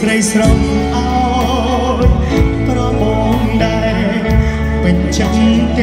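Live band playing a Khmer pop song on keyboard, with a male singer singing into a microphone through the PA; held low notes shift every second or two beneath the voice.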